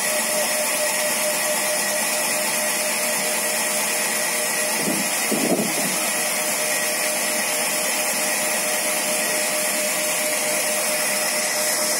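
Large log band saw running steadily while it saws a log lengthwise, a constant machine whine and hiss at an even level.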